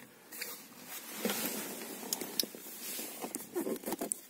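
Handling noise inside a car cabin: rustling and scattered small clicks as a handheld camera is moved about and clothing brushes against the seat and trim.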